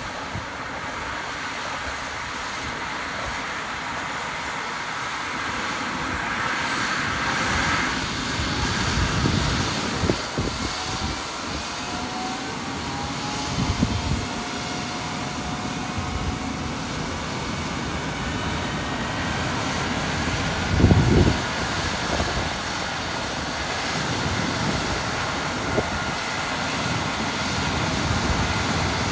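Airbus EC135 rescue helicopter's turbines and rotor running steadily, slowly growing louder, with faint tones that rise in pitch about a third of the way in. A few brief low thumps break through, the strongest about three-quarters of the way through.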